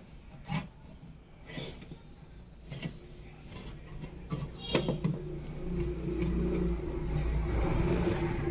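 A few light clicks and knocks, then a steady low hum that comes in about five seconds in and grows louder over the last few seconds.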